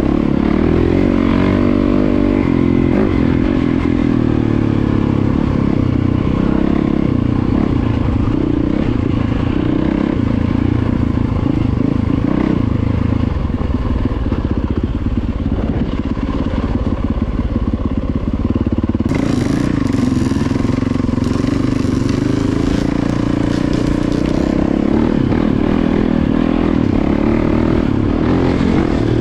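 Yamaha dirt bike engine running close up while riding a dirt trail, its pitch rising and falling with the throttle.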